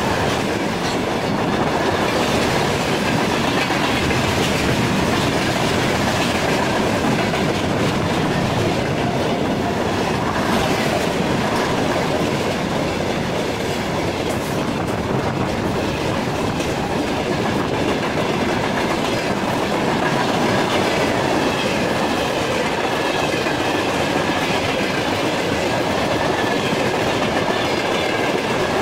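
Freight train's tank cars and open hopper wagons rolling past close by at speed: a steady rumble with clattering wheels on the rails.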